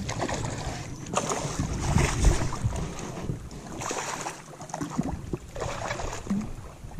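Water splashing in irregular bursts beside a small fishing boat as a hooked snook thrashes at the surface while it is brought in, with wind rumbling on the microphone.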